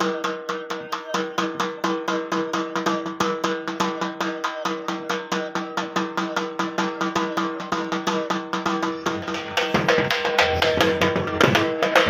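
Music with a fast, even drum beat of about five strokes a second over steady held notes. It turns fuller and louder about ten seconds in.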